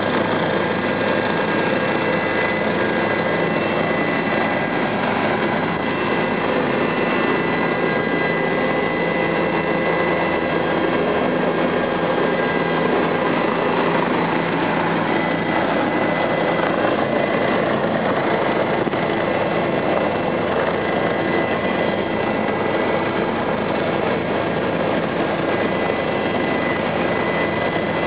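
Helicopter engine and rotors running steadily, a high steady whine over dense even noise.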